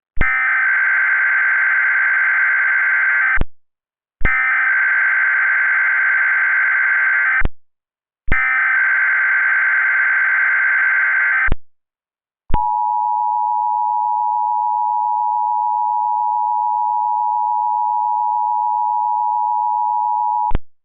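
Emergency Alert System tones: three identical bursts of SAME digital header data, each about three seconds long with short gaps between them, followed by the two-note EAS attention signal held steady for about eight seconds. The sequence opens a new alert, here a tornado watch.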